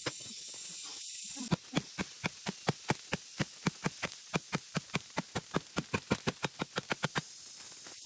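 Rapid, even hacks of a machete-like blade chopping into tree roots, about four or five strikes a second, stopping shortly before the end. A steady hiss comes before the strikes begin.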